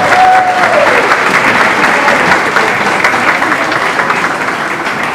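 Audience applauding, the clapping slowly fading toward the end.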